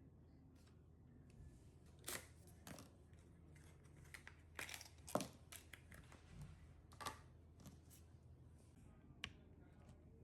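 Faint scattered clicks and rustles of hands handling small laptop parts and packaging during an SSD and RAM upgrade, with the strongest click about five seconds in.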